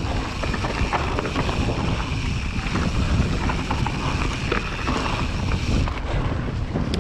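Wind buffeting the camera microphone and a mountain bike's knobby tyres rolling fast over a dirt and rock trail, with steady clattering and rattling from the bike over bumps.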